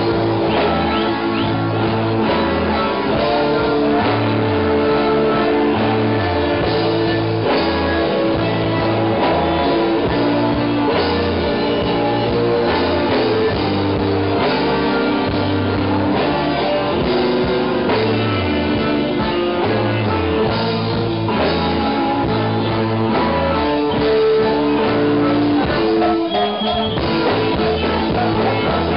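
Live band playing loud rock music with electric guitar, a low line stepping between notes underneath in a steady rhythm.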